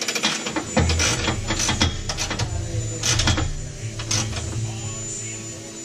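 Sharp metallic clicks and rattles of cab door hardware being fitted, with a small motor whirring steadily for about four seconds from about a second in.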